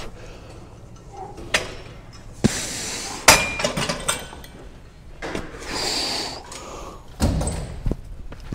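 Lat pulldown cable machine in use: the weight stack clinks and knocks several times, the sharpest knock about three seconds in. A long breathy exhale follows about six seconds in.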